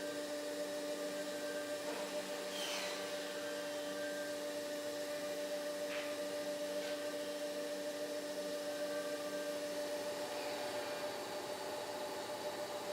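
A motor running steadily, a constant hum with a steady tone, with a few faint brief swishes over it.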